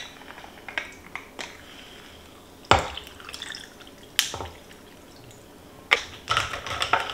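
Lemonade poured from a plastic bottle over ice in a tall glass, with a few sharp knocks of bottle against glass and countertop. Ice rattles in the glass near the end.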